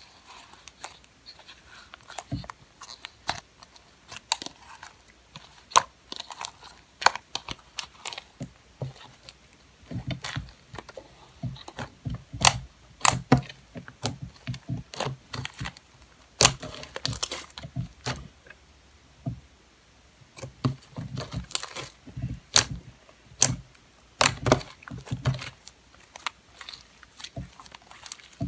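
Hands squishing and poking homemade slime, giving irregular sticky clicks and pops, with heavier dull presses in the middle stretch.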